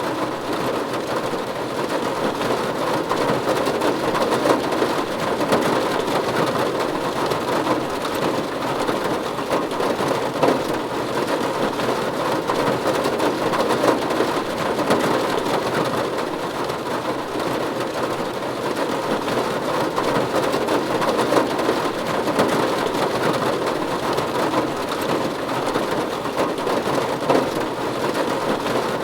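Steady rain falling on a roof, a dense, even patter of drops with a few louder drops striking now and then.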